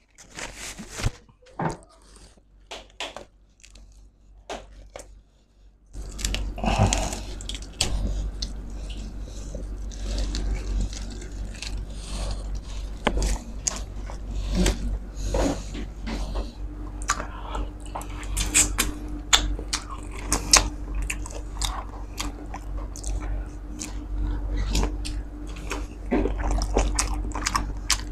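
Close-miked eating of crisp-skinned roast suckling pig (lechon de leche): crunching, biting and chewing, with hands pulling the meat apart. A few soft clicks for the first six seconds, then continuous chewing with many sharp crackles.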